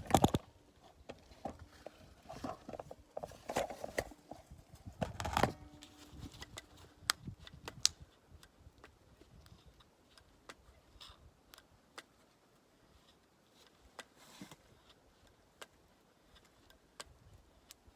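Hand-worked grease gun and its coupler on a backhoe grease fitting: irregular clicks and knocks for about the first eight seconds, then only sparse faint ticks as the fitting takes grease.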